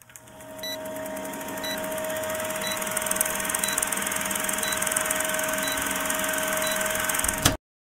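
A steady mechanical whir with a low hum, fading in over the first two seconds and cutting off abruptly near the end, with faint ticks about once a second.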